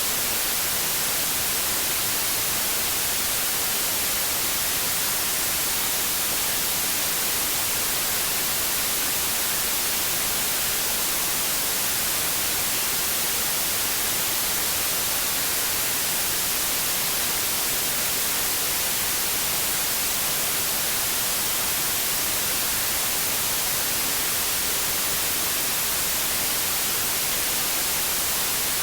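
Steady hiss of television static, even and unchanging, brightest in the high treble.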